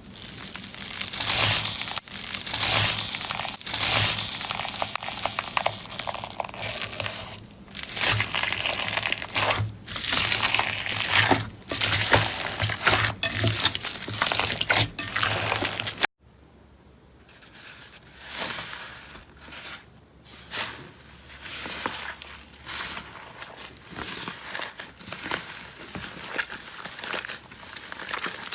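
Slime being squeezed and pressed by hand, giving dense crackling, crinkly pops. About two-thirds of the way through it changes abruptly to a quieter stretch of similar crackling.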